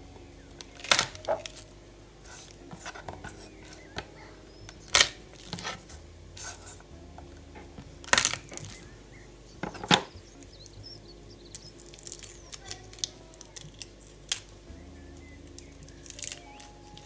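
A handful of sharp clinks and taps, loudest about one, five, eight and ten seconds in, from objects being handled and set down, like tableware. Soft background music runs underneath.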